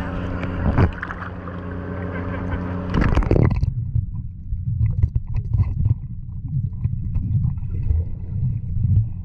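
A steady engine hum that gives way abruptly, about three and a half seconds in, to an uneven low rumble.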